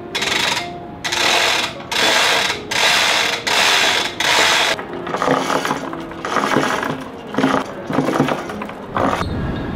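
A manual chain hoist being hauled on by its hand chain, taking the weight of a heavy stone block. The chain rattles through the hoist with a ratcheting clatter in regular pulls, about one every three-quarters of a second, turning into a quicker, more irregular rattle after about five seconds.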